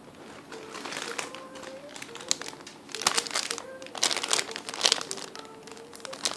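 Plastic crinkling and rustling in quick irregular bursts, thicker in the second half, as squishy toys are handled.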